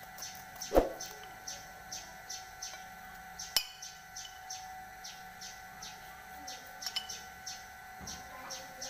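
High chirps from a small bird repeating evenly, about three a second. Two sharp clicks cut through, the louder one about a second in and another about three and a half seconds in, from a knife striking the glass plate as bitter melon is cut.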